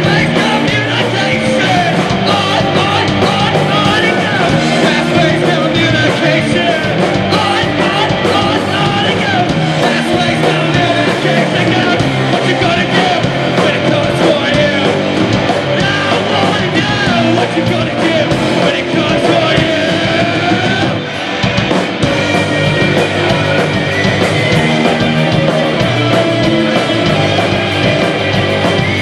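Post-punk band playing live: two electric guitars, electric bass and drum kit, with a man singing into the mic over them. The sound dips briefly about two-thirds of the way through before the full band is back in.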